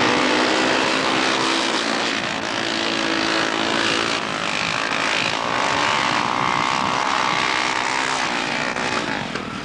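Speedway motorcycles racing past, their 500cc single-cylinder methanol engines revving hard, with the pitch rising and falling as the bikes accelerate and back off. The engine noise eases slightly near the end as the bikes move away down the far straight.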